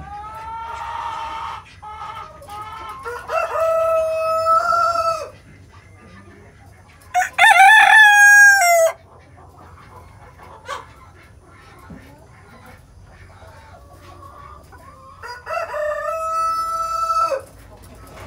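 Araucana chickens: a rooster crowing four times, long held calls that each end on a falling note, the loudest a little before the middle. Hens cluck softly between the crows.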